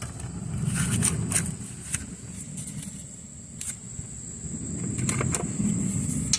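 A few scattered metallic clicks and clanks of hand tools working at the front brake caliper bracket, over a low steady rumble.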